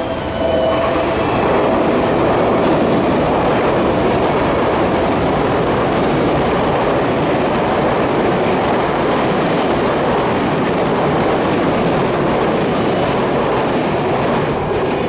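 Electric commuter train passing close by, a loud steady rumble of wheels on rail with faint light clicking over the rail joints.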